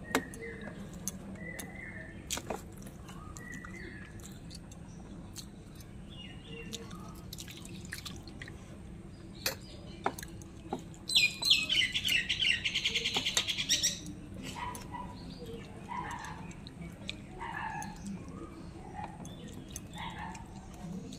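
Small birds chirping on and off, with one loud, rapid trilling call lasting about three seconds midway.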